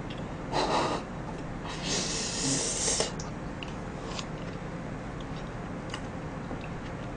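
A person drawing breath in sharply through the nose: a short sniff, then a longer one about two seconds in. A few faint small clicks of eating follow.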